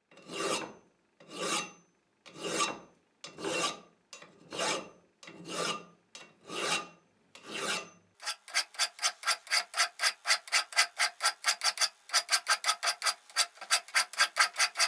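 Hand file rasping across the steel of a railroad-track anvil's corner, truing it by hand. About eight slow, long strokes come roughly a second apart, then the filing switches to short, rapid strokes, about five a second.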